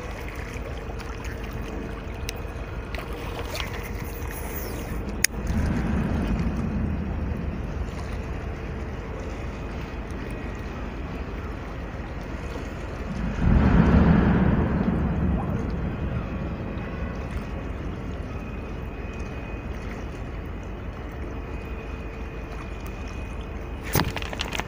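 Steady wind and water noise at a rocky seashore, swelling loudly twice, about five and about thirteen seconds in, each swell fading over a couple of seconds.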